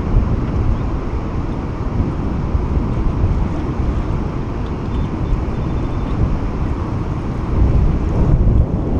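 Wind buffeting the microphone in the open, a steady low rumble with no pitched engine tone in it.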